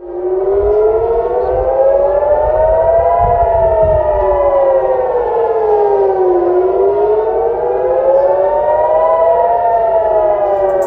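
Civil-defence rocket warning siren wailing loudly, its pitch slowly rising and falling about every six seconds, with more than one siren sounding out of step with each other over a low rumble. It is the alert for incoming rockets.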